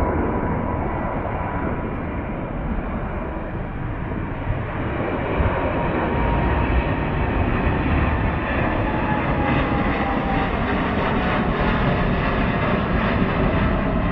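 Jet airliner engines running loud and steady, a deep rumble with a high whine that slowly falls in pitch.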